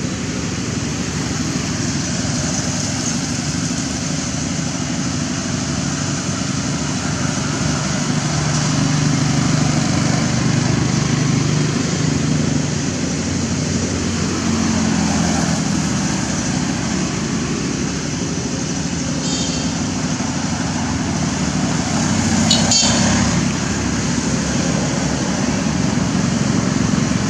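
Steady road traffic noise, with the drone of passing vehicle engines rising and falling in pitch around the middle. There is one sharp click late on.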